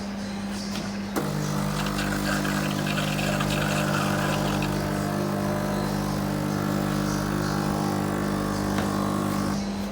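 Bosch Tassimo pod coffee machine brewing: its pump clicks on about a second in and runs with a steady hum and a hiss of water, then cuts off shortly before the end, over a constant lower background hum.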